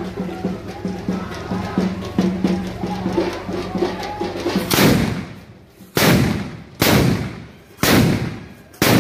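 Music with a steady beat for the first half, then five loud firecracker bangs at irregular intervals of about a second, each trailing off after the crack.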